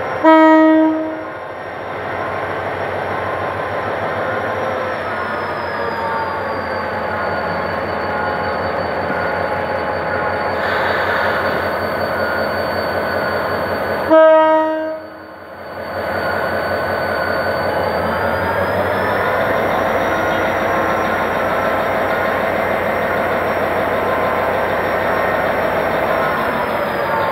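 Horn of a GM GT-22 CW-2 diesel-electric locomotive, sounded in two short blasts of about a second each: one right at the start and one about 14 seconds in. Between and after the blasts comes the steady running of the locomotive and the passenger train rolling by as it pulls out, growing slightly louder toward the end.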